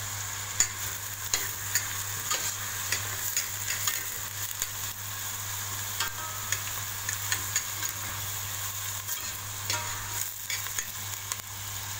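Chopped onions sizzling in hot ghee in a stainless steel pot while a spoon stirs them, scraping and tapping the pot in irregular clicks over the steady sizzle. The onions are just starting to soften, not yet browning.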